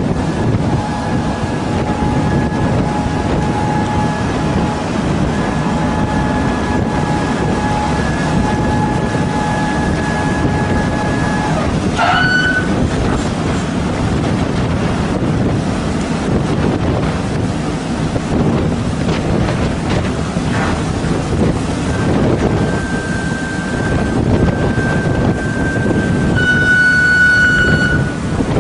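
Wind and sea noise on a boat under a steady mechanical whine. About twelve seconds in the whine sweeps sharply in pitch and cuts out. It comes back after about twenty-two seconds, steady and louder near the end.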